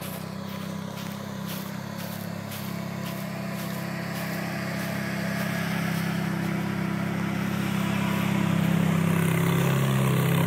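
Ferrari mid-engined V8 convertible running at low, steady revs as it drives slowly along, growing louder as it comes close.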